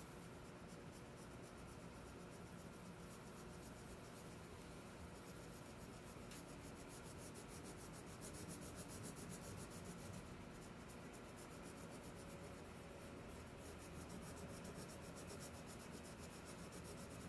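Wax crayon rubbing back and forth on paper, faint and steady.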